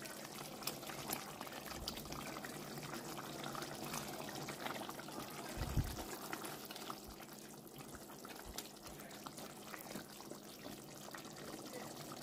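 Seafood sauce simmering in a pot, bubbling with many small pops. A dull bump sounds once just before the middle.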